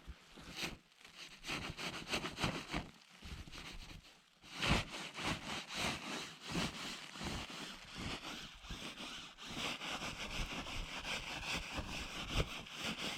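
Irregular rustling and scraping, full of sharp crackles and taps.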